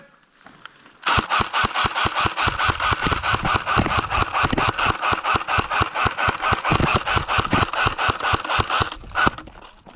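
Airsoft rifle firing full-auto in one long burst of rapid, even shots, starting about a second in and stopping near the end, about eight seconds later.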